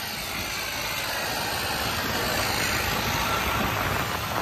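John Deere 5039D tractor's three-cylinder diesel engine running steadily as it drives at road speed, mixed with wind and road noise from riding alongside it. The sound grows slightly louder as the tractor draws close.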